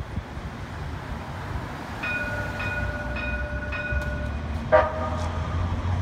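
A streetcar's warning bell rings four times in a steady rhythm, then a short horn toot sounds about three-quarters of the way in, over low street traffic rumble.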